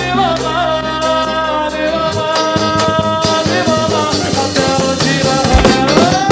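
Live band music in an instrumental passage: a lead melody of long held notes that slide between pitches, over bass and drums. The bass holds steady, then a busier drum pattern comes in about two seconds in.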